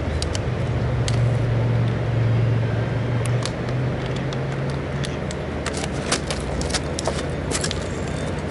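A low steady motor hum, stronger for a few seconds in the first half, with scattered light clicks over it.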